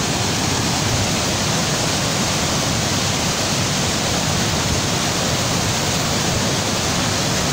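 Swollen, muddy flood river rushing past: a steady, unbroken noise of fast water at a constant level.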